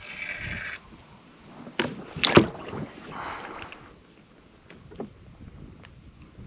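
A hooked pike fighting close to a kayak: the spinning reel's drag buzzes briefly as line pays out, then come loud splashes and knocks as the fish thrashes at the surface, the loudest about two seconds in, and a further splash of water a second later.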